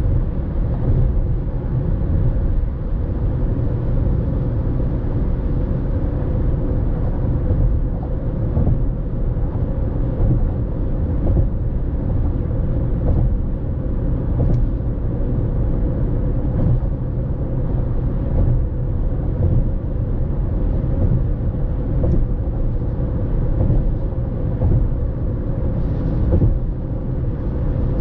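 A car driving at expressway speed: steady low road and engine rumble with tyre noise, a faint steady hum running through it.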